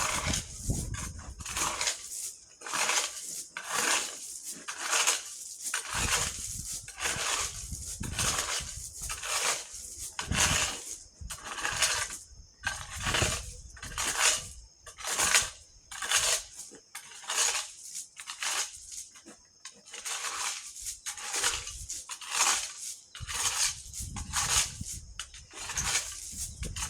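Rhythmic scraping strokes, about two a second, of a tool being worked over loose gravel and sand to gather it up, with short pauses between runs of strokes.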